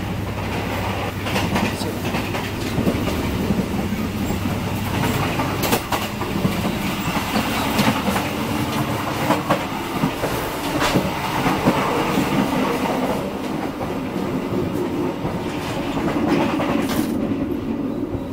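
Passenger train running, heard from inside the coaches: a steady rumble of wheels on rail with scattered sharp clacks.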